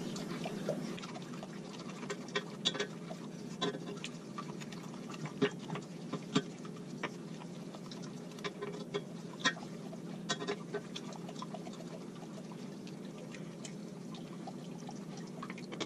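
Wooden spoon stirring a coconut-milk and gelatin mixture in a stainless steel saucepan: liquid swishing, with irregular light knocks and scrapes of the spoon against the pan, over a steady low hum.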